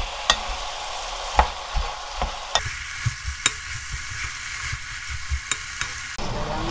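Sliced eggplant, onion, carrot and chili peppers sizzling in oil in a pan as they are stir-fried with a wooden spoon. Irregular knocks and scrapes of the spoon against the pan come through a steady frying hiss.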